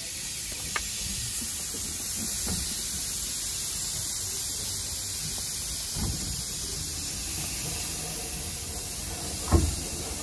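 Steam hissing steadily from a 15-inch-gauge Romney, Hythe & Dymchurch Railway steam locomotive standing at the platform, with a few short clunks along the train.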